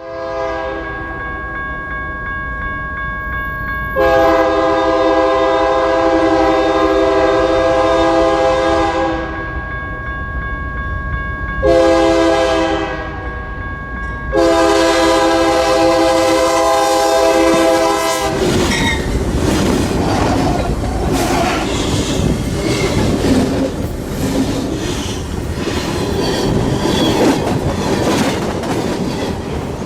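Train horn sounding in long blasts, one short, that grow loud as the train comes close; the train then passes right over the microphone with a loud rumble and clattering wheels on the rails.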